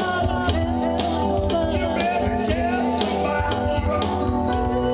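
Live amplified singing by a man and a woman over keyboard accompaniment, with a steady beat and guitar-like backing.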